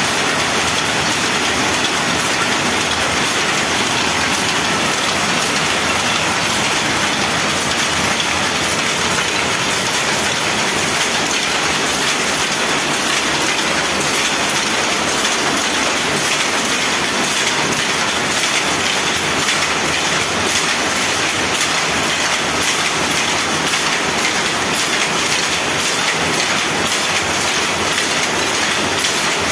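Several electric jacquard power looms running together: a loud, steady, dense mechanical clatter of many fast beats blurring into one din.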